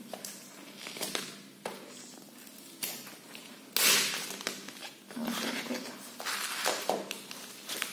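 Cardboard and paper packaging being worked and torn off a pair of plastic Puller Midi dog training rings: irregular rustling, scraping and tearing, with a louder burst of tearing about four seconds in.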